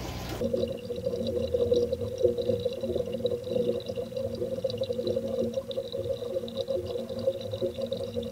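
Aquarium water bubbling, heard through a camera submerged in the tank; it starts abruptly about half a second in and goes on unevenly.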